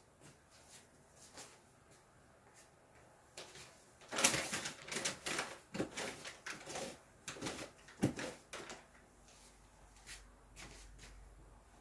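A cat's claws raking a corrugated-cardboard scratcher with its front paws. A run of quick scratchy strokes starts about four seconds in and goes on for some five seconds, with a few faint scrapes near the end.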